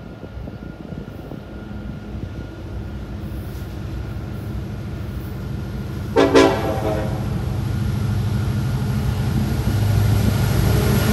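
Union Pacific freight train's diesel locomotives approaching, their low rumble growing steadily louder as they near. A short horn blast sounds about six seconds in.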